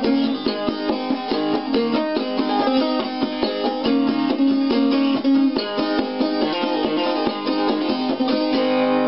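Five-string gas-can banjo, a Flying A gasoline can for its body, played clawhammer style: a quick, even run of plucked notes with a low note ringing steadily underneath.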